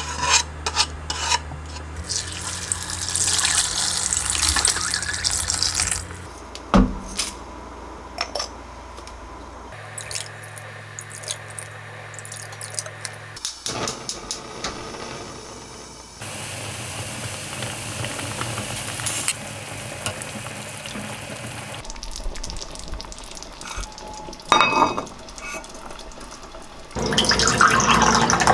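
Kitchen sounds in several short cuts: water running, with scattered clinks and knocks of a pot and utensils. Near the end, tea is poured from a jug into a glass tumbler.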